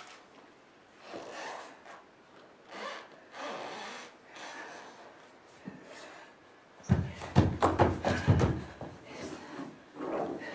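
Soft scuffs and rubs of a body moving on a wooden stage floor, then about seven seconds in a fast run of loud wooden knocks and scrapes.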